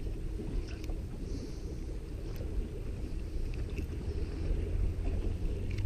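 Steady low wind rumble on the microphone, with a few faint light clicks from a hook remover working a hook out of a small rockfish.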